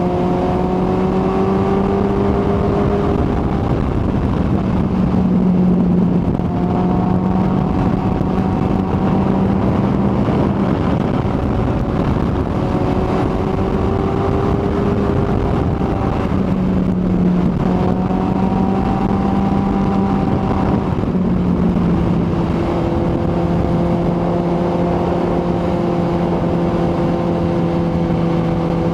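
Kawasaki ZX-14R's inline-four engine running steadily while riding, with wind rush. Its note changes pitch a few times, about a quarter of the way in, at the middle and again near three quarters.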